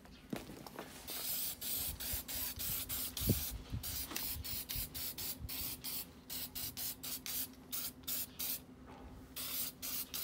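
Aerosol spray-paint can hissing as paint goes onto a small engine's exhaust muffler: one longer spray about a second in, then many short bursts. A low bump about three seconds in.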